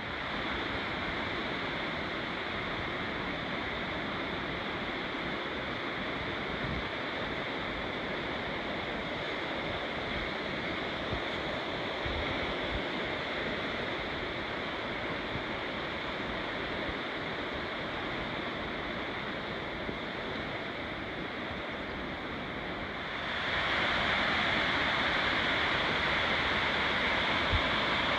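Small forest creek rushing over cascades: a steady hiss of running water that grows louder near the end.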